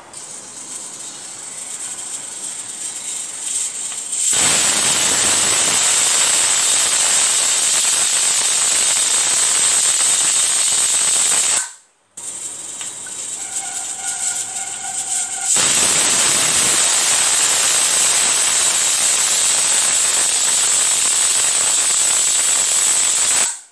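Aluminium inner-lid pressure cooker whistling: steam hiss builds for a few seconds, then the weight valve lifts into a loud, steady steam whistle lasting about seven seconds, each whistle marking pressure reached on medium-low flame. It cuts off abruptly about halfway through, then a second round of hissing with a faint thin tone builds into another whistle of about eight seconds.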